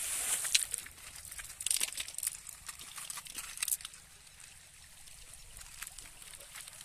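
Shallow river water trickling and lapping at a gravel edge, with scattered sharp clicks in the first few seconds. After about four seconds only a fainter steady hiss remains.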